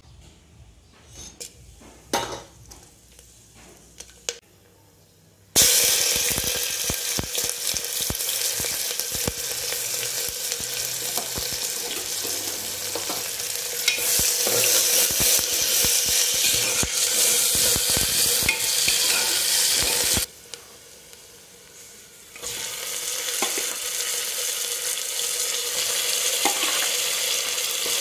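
Sliced onions and whole spices sizzling in hot oil in an aluminium pressure cooker, with a metal spoon stirring and scraping against the pot. The sizzle starts suddenly about five seconds in after a few faint clicks, dips for about two seconds past the middle, then comes back as loud as before.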